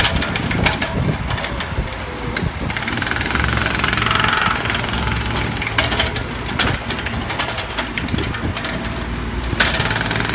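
Mini excavator's diesel engine running steadily while its hydraulic breaker hammers at the road surface in spells of rapid knocking.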